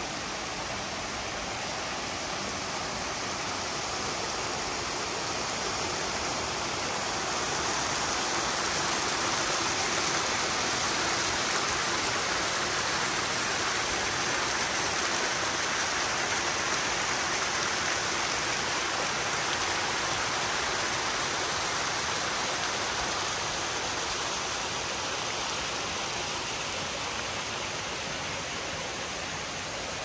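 Waterfall rushing in a steady, even wash of falling and flowing water, growing a little louder through the middle and easing off near the end.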